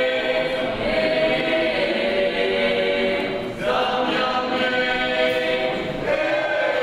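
Small choir singing unaccompanied in long held chords, which change about three and a half seconds in and again near the end.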